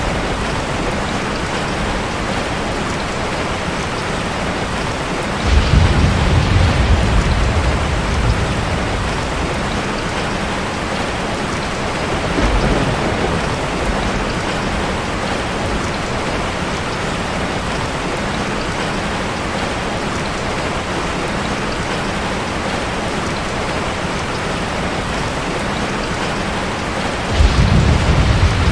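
Steady heavy rain falling, an even hiss of drops. A deep rumble, thunder, swells about five seconds in and again near the end, with a shorter one around the middle.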